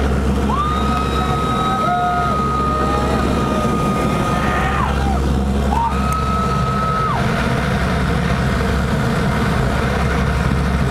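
Jet airliner cabin noise: the steady rumble and hum of the engines and airflow while the aircraft rolls along the runway. A thin steady high tone comes in about a second in for some four seconds, and again briefly about six seconds in.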